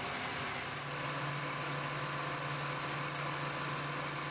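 Heavy equipment engine running steadily, a constant mechanical hum under a wash of noise, with a low drone that comes in just under a second in.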